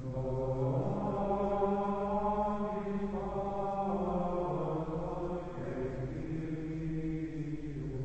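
Carthusian monks singing plainchant: men's voices in slow unison, holding long notes and stepping to a new pitch every few seconds.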